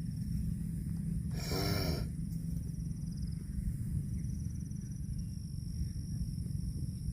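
A cow gives one short call, under a second long, about a second and a half in, over a steady low rumble and continuous insect buzzing.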